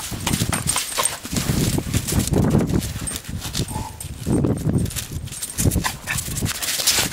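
A Weimaraner and a collie rough-playing, with low growls in irregular bursts and scuffling through the snow.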